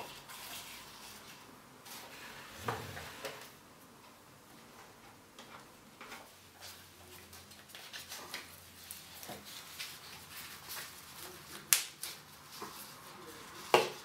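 Hands handling potted plants and plastic pots: soft rustling and scattered light plastic knocks and clicks, with a louder knock early on and two sharper clicks near the end.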